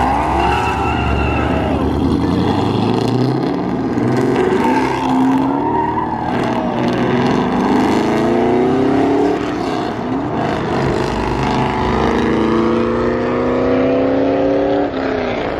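Cars accelerating hard away from a car meet one after another, engines revving up in rising sweeps through several gear shifts. The last run-up cuts off suddenly near the end.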